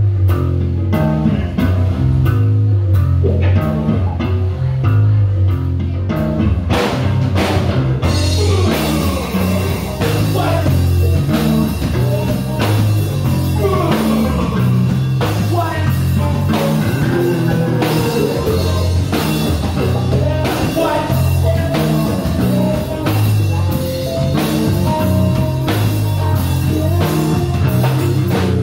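Live rock band playing an original song. The bass guitar and drums open it, the full band with cymbals and electric guitar comes in about eight seconds in, and a singer's voice is heard over it.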